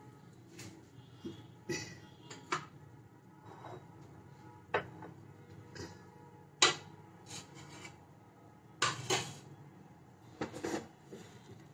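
Scattered light clinks and knocks of kitchenware around a steel pot on a gas stove, a dozen or so in all, the sharpest a little past halfway and again a couple of seconds later.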